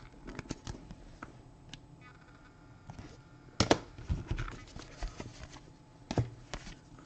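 Trading cards and packs being handled on a table: irregular light clicks and taps, with two sharper knocks, one midway and one near the end.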